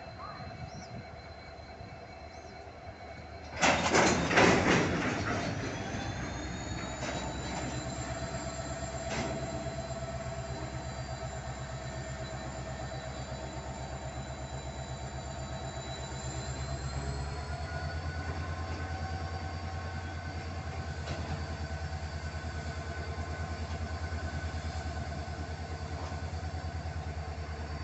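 Petroleum tank wagons of a long goods train rolling past on the track: a steady rumble of wheels with thin, high wheel squeal that rises in pitch about two thirds of the way through. A loud burst of noise comes about four seconds in.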